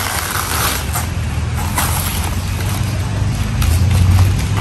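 Banana leaves and dry banana fibre rustling and crackling as they are handled, with short crisp crackles scattered through, over a steady low rumble that swells near the end.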